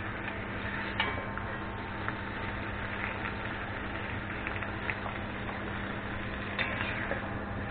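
Beef, onion and bell pepper sizzling as they fry in a kazan, stirred with a utensil that scrapes and knocks against the pot a few times, most sharply about a second in and again near the end.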